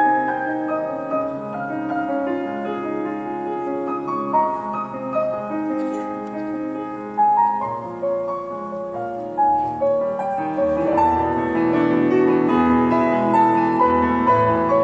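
Solo piano playing a slow, flowing melody, growing fuller and a little louder in the last few seconds.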